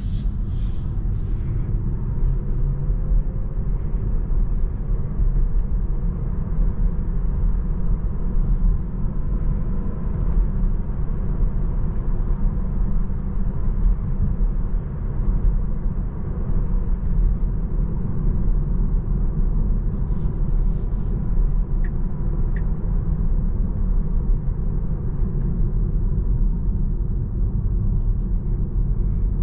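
Steady low road and tyre rumble inside the cabin of a 2022 Tesla Model 3 Long Range electric car cruising at highway speed, with no engine note.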